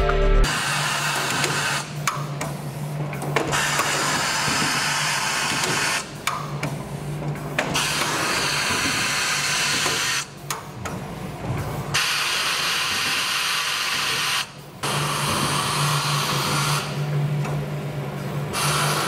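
J2L2 fully automatic PET bottle blow molding machine running: a steady hiss over a low hum, dropping away briefly every few seconds.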